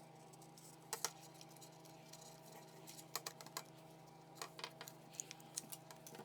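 Light, sharp clicks and taps of small tools and parts on an HTC 10 smartphone being taken apart: a couple about a second in, then clusters of quick clicks in the second half, over a steady faint electrical hum.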